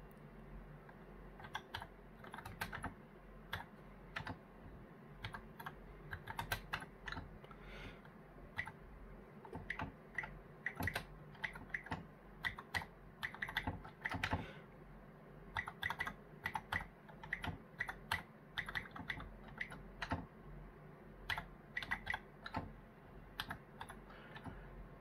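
Typing on an Oric home computer's keyboard: irregular runs of key clicks broken by short pauses, one a little over halfway through.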